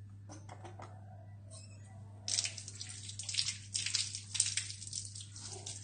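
Water running from a tap and splashing over hands being washed, starting about two seconds in after a few small knocks.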